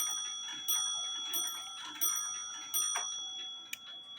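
Mechanical one-day cuckoo clock movement ticking steadily, about one metallic, ringing tick every 0.7 seconds. The regular ticking breaks off about three seconds in, leaving a few irregular clicks of the mechanism being handled.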